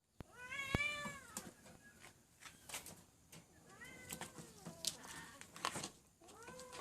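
A domestic cat meowing three times: a long, arching meow about half a second in, a shorter one around four seconds, and another starting near the end. Light clicks and knocks between the calls.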